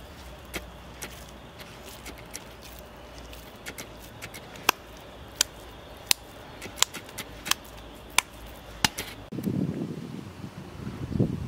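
Wet ground meat and rice being slapped between the palms as a meatball is shaped, a sharp slap about every 0.7 seconds. Near the end the slapping gives way to wind rumbling on the microphone.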